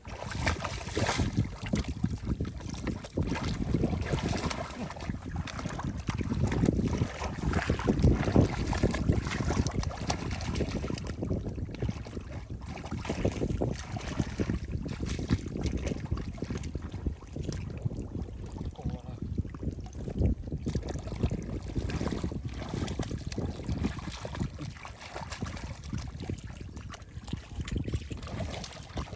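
Irregular splashing and sloshing of shallow, muddy water as someone wades and grabs at fish, with many short uneven splashes.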